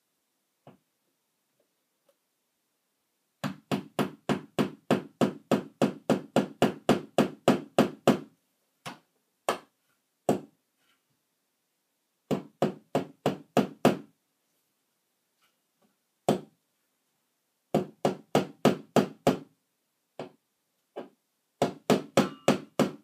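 Sharp clicks in quick runs of about four a second, with single clicks between the runs, from a small mechanism being worked over and over by hand.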